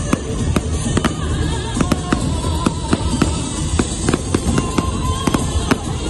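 Aerial fireworks bursting and crackling in quick, irregular sharp cracks, several a second, over a steady low rumble.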